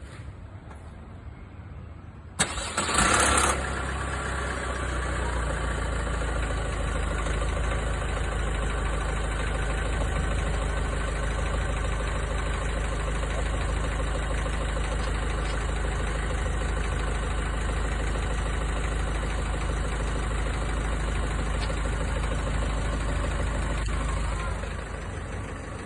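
Vauxhall Astra K's 1.6 CDTi four-cylinder diesel engine cranking and firing about two seconds in, then idling steadily, dropping a little in level near the end. The start-up rattle is put down by the owner to the timing chain.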